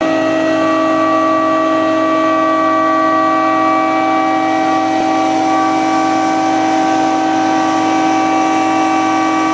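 Liquid oxygen tanker trailer transferring its cryogenic load through a frosted hose: a loud, steady hiss with a steady whine of several pitches over it, from the pump and the rushing gas and liquid in the transfer lines.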